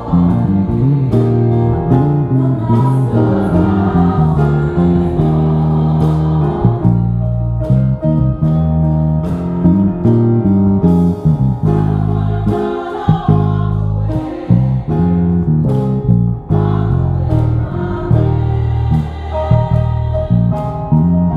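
Gospel music with a choir singing, and a six-string Ibanez electric bass playing a bass line of quickly changing notes along with it through an amp; the bass notes are the loudest part.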